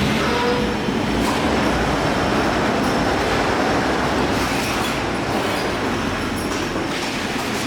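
Steady mechanical din of washing-machine production-line machinery, with a few faint knocks scattered through it.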